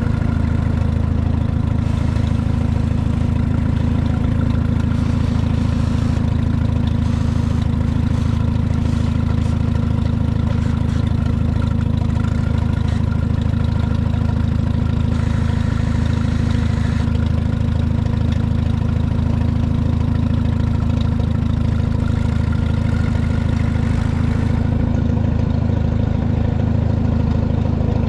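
Tractor engine idling steadily, an even low running note with no change in speed.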